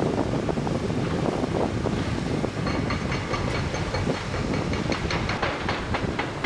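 Heavy demolition machinery working on a bridge: a deep engine rumble, joined from about three seconds in by rapid, uneven metallic clanking and a high squeal of metal.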